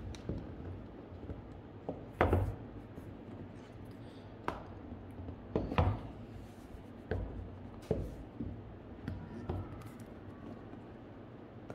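Hands handling a cardboard product box: irregular knocks, taps and scrapes as the box is turned and lifted, with louder thuds about two seconds in and around the middle.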